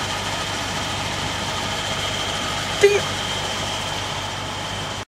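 Steady hum of an idling engine with an even hiss over it, broken by one brief short sound about three seconds in; the sound cuts off suddenly near the end.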